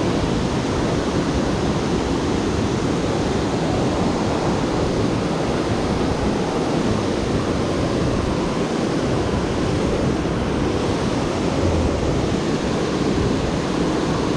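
Steady rushing roar of water pouring over a dam spillway, a loud continuous wash of noise with no break.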